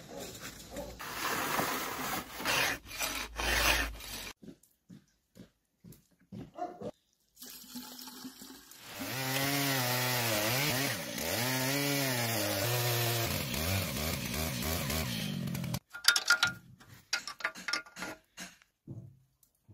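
A Stihl chainsaw cutting into a log, running at high revs for about seven seconds in the middle, its pitch sagging and recovering several times as the chain bites. Before and after it come scattered knocks, clicks and rustling.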